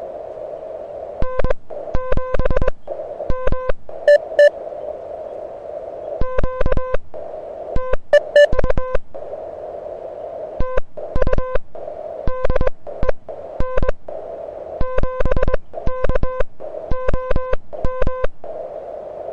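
Morse code being keyed on an MTR4B QRP transceiver: its sidetone, a buzzy mid-pitched tone, sounds in groups of dits and dahs, and the receiver's steady hiss fills the gaps between groups. Two brief higher-pitched double beeps come about 4 and 8 seconds in.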